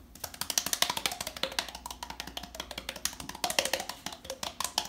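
Hands rapidly patting both cheeks over a wide-open mouth, making a fast string of hollow, wood-block-like pops whose pitch slides up and down as the mouth changes shape.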